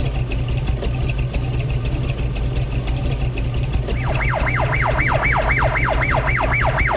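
A motor vehicle engine running steadily with a low rumble and even ticking. About four seconds in, a fast siren starts: a repeated falling wail, about four sweeps a second.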